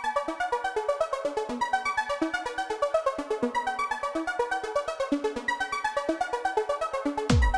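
Electronic music: a fast synthesizer arpeggio of rapid repeating notes, with a heavy bass and kick drum coming in near the end.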